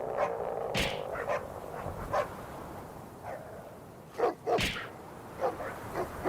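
Dogs barking and yelping in short, scattered bursts of sound, with two sharp swishing noises, one about a second in and one past four seconds in.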